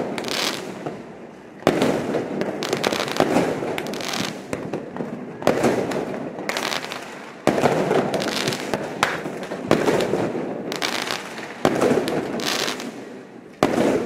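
Fireworks display: a sharp bang about every two seconds, each followed by a trail of crackling that dies away before the next burst.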